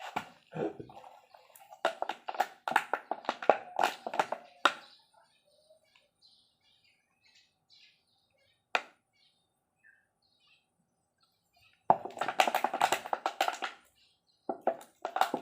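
Engine parts being worked by hand on the bench: three bursts of rapid scraping and clicking of metal on metal, with a squeaky, chirping edge, from about two to five seconds in and again near the end.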